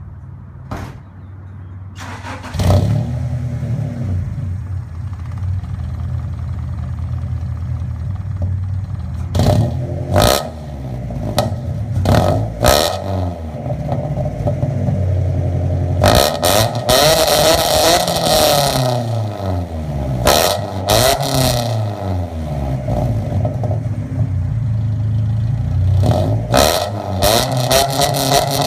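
Honda B20 four-cylinder engine cranking and firing on a cold start about two seconds in, then idling loudly and being revved again and again: a few quick blips, then long rises and falls in pitch, more blips near the end. It runs through an aftermarket header and muffler with no resonator and no silencer.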